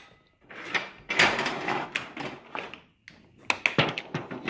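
New snare drum head being fitted over the wooden drum shell: its hoop scrapes and rubs against the shell edge, with a quick run of sharp clicks and knocks near the end.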